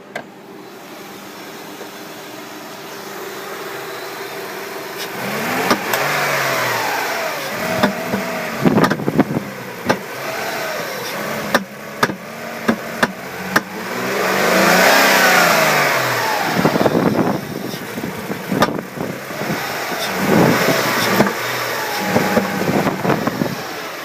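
Hyundai Sonata V6 engine idling, then revved up and let fall back several times, with sharp pops and stumbles scattered through the revs: the engine is sneezing, a misfire-like cough.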